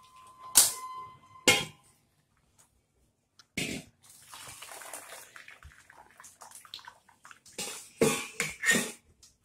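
Boiled noodles and their hot water poured into a stainless-steel colander, water splashing and draining through the holes, with several sharp clinks of metal on metal.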